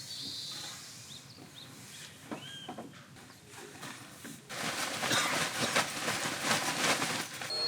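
Short high bird chirps in a forest, then a louder rough rushing noise with rapid crackles that starts about halfway.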